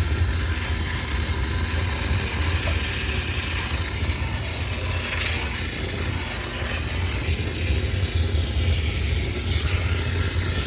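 High-pressure steam cleaner running on a sneaker washing machine: a steady low machine hum under a continuous hiss of steam.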